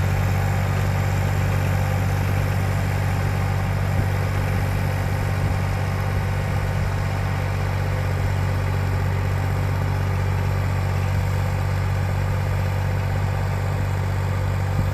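Massey Ferguson 35 tractor engine running steadily, driving a 1.60 m rototiller through the power take-off.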